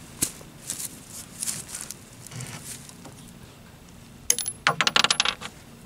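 Rifle scope's adjustment turret turned by hand: a few scattered clicks, then a quick run of sharp metallic clicks a little past four seconds in. The scope is being dialed to correct shots landing low and to the left.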